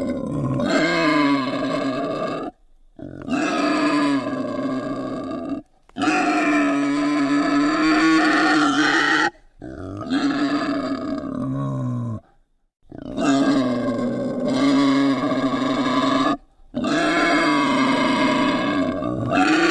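Wild boar (Eurasian wild pig) making a series of loud, long, drawn-out calls, about six in all, each lasting a few seconds, with short, abrupt silences between them.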